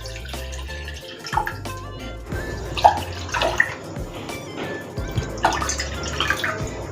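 Water being poured from a cup into a cooking pot, splashing and trickling, over background music.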